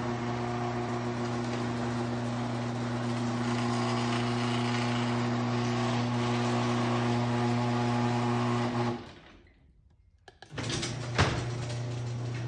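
LiftMaster 8365 garage door opener motor running with a steady hum and mechanical rattle as it raises the door, cutting off abruptly about nine seconds in. After a short near-silent gap the hum returns, with a sharp click about a second later.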